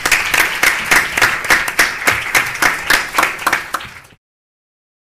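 Audience applauding, a dense run of many hands clapping that cuts off abruptly about four seconds in.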